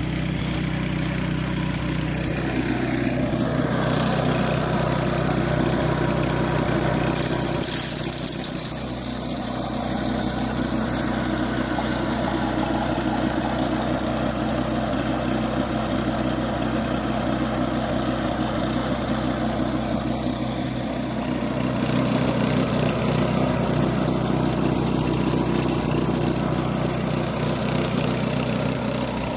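Small single-cylinder pull-start gas engine on a K&M rock crusher running steadily, its tone shifting a few times.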